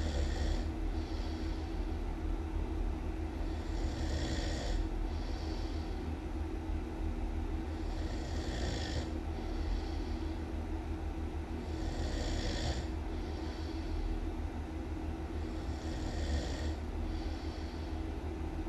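A person snoring in a steady, regular rhythm, one snore about every four seconds. Each loud, hissy snore is followed about a second later by a weaker one. A steady low hum runs underneath.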